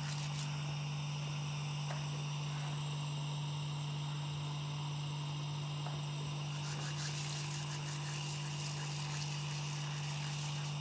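A steady low hum with a faint hiss behind it, unchanging throughout.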